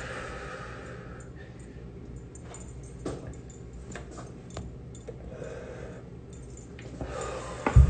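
A man smoking a cigar, drawing on it and breathing out softly in several long breaths, with a single knock near the end.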